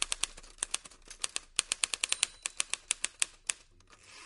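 Typewriter keys clacking in a quick, irregular run of sharp strokes, several a second, stopping near the end.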